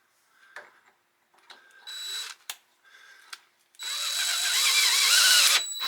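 Cordless drill driver motor running in short bursts, the longer one whining and wavering in pitch as it strains under load while threading; it is not strong enough to drive the thread.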